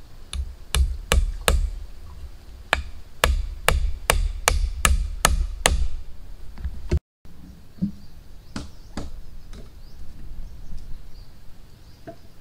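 Repeated sharp blows of a hand tool striking wood, about two a second, a dozen or so in quick succession. The sound breaks off about seven seconds in, followed by fainter, more scattered knocks.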